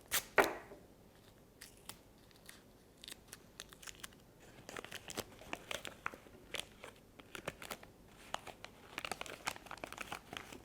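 Sticky tape snapping off the roll at the start, then paper crinkling and crackling in many small irregular ticks as it is smoothed and taped over a box to cover a homemade drum.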